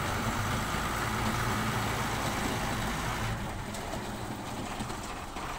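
Diesel dump truck engine running steadily at low revs as the truck manoeuvres, with a low hum and a hiss on top that eases off about three seconds in.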